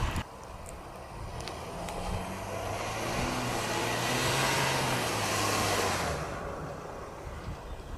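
Jeep Grand Cherokee WK2's diesel engine working under load in mud. The engine hum and a rushing noise build up about two seconds in, hold steady, then fade away near the end.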